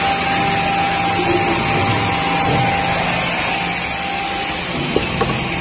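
Automatic edge banding machine running with its dust extraction drawing through the hoses: a steady rushing noise over a constant motor hum. Two sharp clicks near the end.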